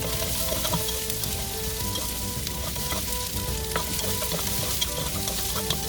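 Garlic and red onions sizzling in hot oil in a pan while being stirred, with now and then a sharp click of the utensil against the pan.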